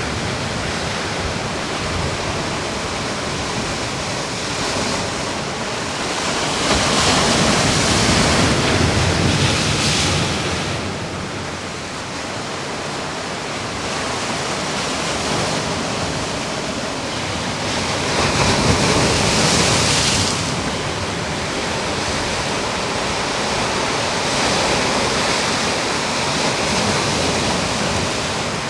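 Ocean surf breaking and washing ashore in a continuous rush that swells louder in three surges, about a quarter, two thirds and near the end of the stretch.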